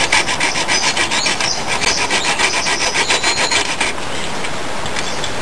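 Folding hand saw cutting a small notch into a thin wooden stick, in quick short back-and-forth strokes, about three or four a second. The strokes stop about four seconds in.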